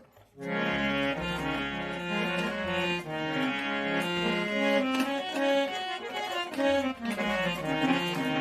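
A harmonium being played: sustained reed chords and a moving melody, starting about half a second in. The instrument has just been cleaned and serviced to cure a buzzing reed sound.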